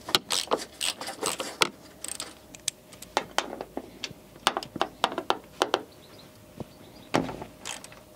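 Ratchet wrench clicking in short bursts, with metal tool clinks, as the front wing's retaining bolts on the door-jamb side are undone.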